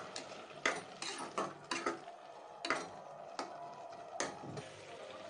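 Steel spatula scraping and knocking against a metal pressure cooker pot while stirring thick carrot halwa, about eight irregular strokes.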